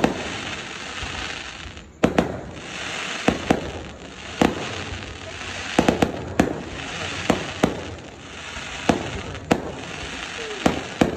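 Aerial fireworks bursting overhead: sharp bangs at uneven intervals, about one every second, over a steady crackle and hiss from the bursting shells.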